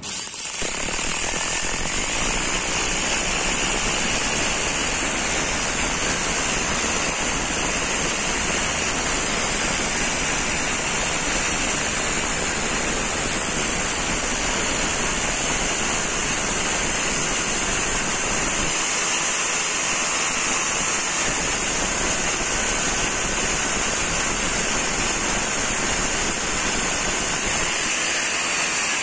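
Hammer drill boring into solid concrete, running steadily under load the whole time.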